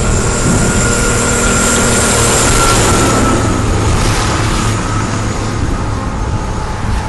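Strong storm wind rushing and buffeting the microphone as a steady loud noise, with a vehicle engine running underneath.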